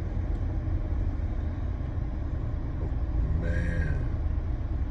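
Steady low road and engine rumble heard inside a car's cabin while driving in traffic, with a brief pitched, wavering tone about three and a half seconds in.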